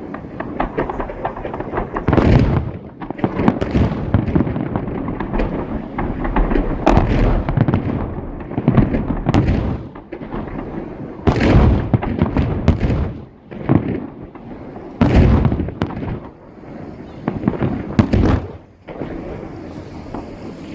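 Fireworks salute: a string of loud booming bangs, roughly one every one to two seconds, with a rolling rumble carrying on between them.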